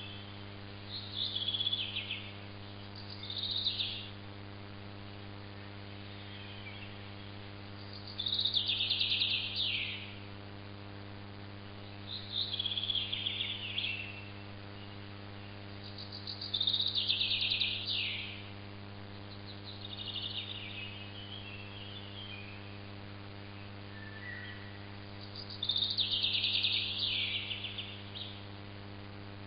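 A bird singing in short warbled phrases, each one to two seconds long, every few seconds at uneven gaps. A steady low electrical hum runs underneath.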